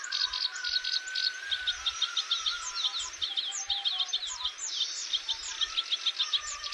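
A chorus of songbirds: many birds chirping at once in fast, overlapping runs of short high notes.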